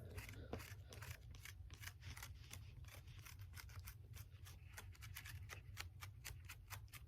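Quick, irregular small clicks and scratches, several a second, of a tool worked over a phone's screen close to the microphone, over a steady low hum.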